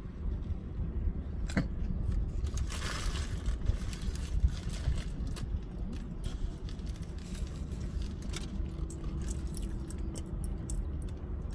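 Close-up eating sounds: chewing a burger and a paper food wrapper crinkling, with a burst of crinkling about three seconds in and small scattered clicks later. A steady low rumble runs underneath.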